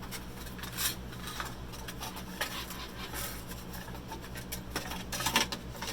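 Packaging rustling, crinkling and knocking in short irregular bursts as a mouse is worked out of a tight box, over a steady low hum.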